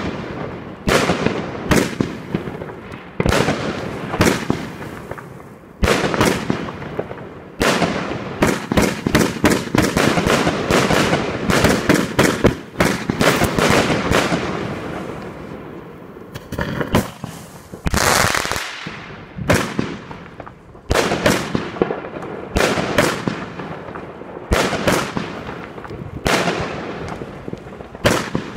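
150-shot consumer firework cake (Pangu Fireworks Garden Party 1) firing in rapid volleys: sharp bangs of bursting shells, often several in quick succession, each trailing off as the next fires. There is a brief lull about two-thirds of the way through.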